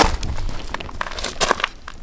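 Footsteps crunching on loose ground: irregular crunches and crackles with soft low thumps.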